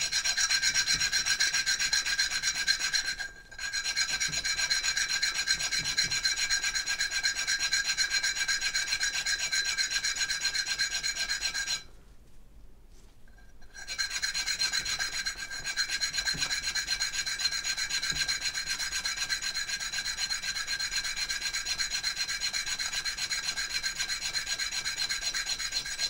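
Cut edge of a clad half-dollar coin ring being rubbed back and forth on 120-grit sandpaper glued to a flat metal plate, a steady scratchy rasp, to flatten the edge. It breaks off briefly about three seconds in and for nearly two seconds around the middle.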